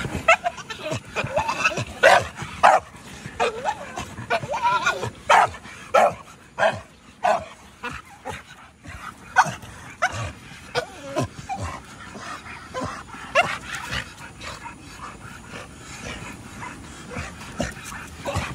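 Dog giving repeated short yips and whining barks, many in quick succession in the first half and sparser later.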